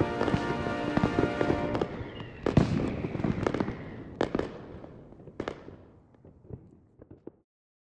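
Aerial fireworks bursting. Dense crackling over music for the first two seconds, then separate sharp booms about a second apart, thinning to faint pops and cutting off suddenly near the end.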